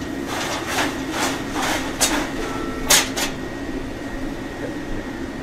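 Metal wire fry basket clanking against a commercial deep fryer: a run of short knocks over about three seconds, the loudest near the three-second mark, over the steady hum of kitchen equipment.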